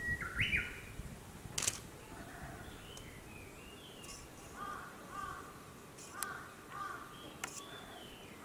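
Wild birds calling: a series of short, arching calls, crow-like caws, coming every half second or so in the second half. A few sharp clicks and some low thumps near the start.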